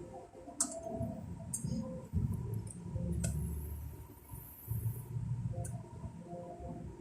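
A few sharp clicks and handling knocks as insulation-tester test leads are clipped onto a circuit breaker's terminals, over a low background rumble.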